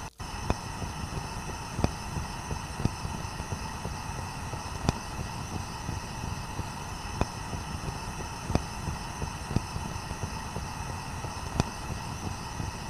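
Steady low hum and rumble with a faint sharp click every second or two, likely from the dough-sealed clay handi pot being handled on the gas stove.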